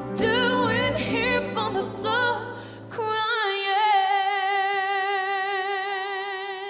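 A young singer performs a pop song over band backing. About three seconds in, the backing stops and she holds one long final note with vibrato, unaccompanied.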